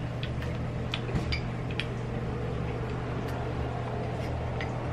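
Quiet eating of ice cream: a few soft, sharp clicks of metal spoons against the containers, with mouth sounds, over a steady low hum.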